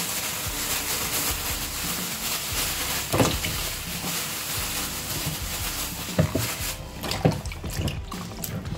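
Tap water running and splashing into a steel sink of red onions, with a few sharp splashes and knocks as the onions are moved around in the water. The running water fades about seven seconds in.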